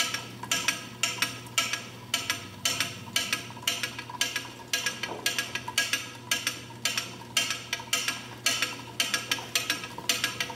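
Carriage of a Monarch Series 90 lathe traversing along the bed, giving a regular clicking about three times a second over a steady low hum.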